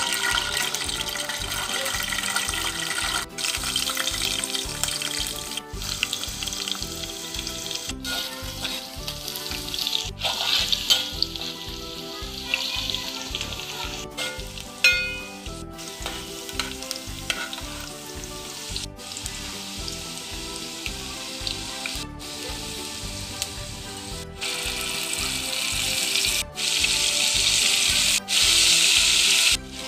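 Hot oil sizzling in a steel pan as chopped garlic, green chillies and spring onions fry, growing louder and hissier in the last few seconds. Soft background music runs underneath, and the sound drops out briefly at several edits. A single sharp ringing knock comes about halfway through.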